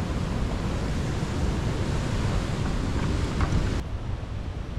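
Ocean surf with wind buffeting the microphone in a steady, rumbling hiss. About four seconds in, the sound changes abruptly and the upper hiss falls away.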